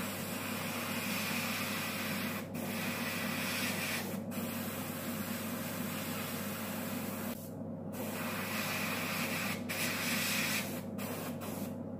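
Airbrush spraying red colour onto nail tips for a colour fade: a steady hiss that stops and restarts several times as the trigger is released between passes, over a constant low hum.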